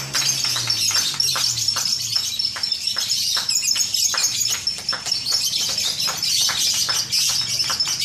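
Many caged lovebirds chirping and trilling together in a dense, unbroken, high-pitched chatter.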